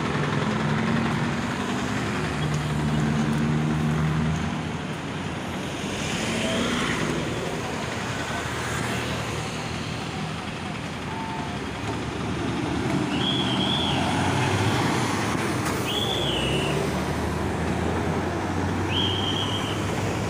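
Road traffic: vehicle engines running and passing close by. In the second half a short high chirp repeats about every three seconds.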